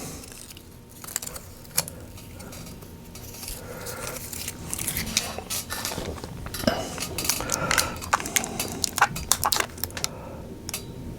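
Thin plastic protective film being peeled by hand off a touch-screen panel: scattered crinkles and small sharp clicks, thickest about eight to ten seconds in.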